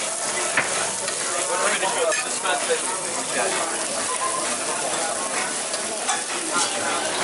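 Ramen noodle buns and a cheese-topped beef patty sizzling steadily in oil on a flat-top griddle, with scattered crackles.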